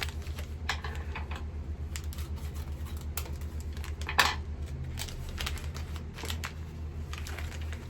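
Small plastic packaging being handled and opened, rustling with scattered light clicks; one sharper click about four seconds in. A steady low hum runs underneath.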